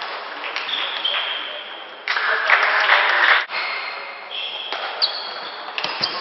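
Table tennis rally: the celluloid ball clicks off the bats and the table over a steady background of hall noise, with a louder burst of that noise about two seconds in.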